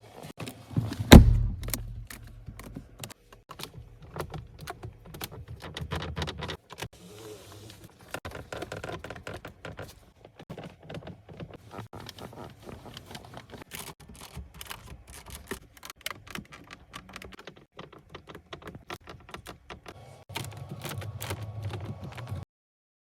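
Irregular ticks, creaks and rattles from the interior trim of a 2021 Mercedes-Maybach S 480 cabin, over a low rumble that comes and goes, with one loud thump about a second in. The sound cuts off suddenly near the end.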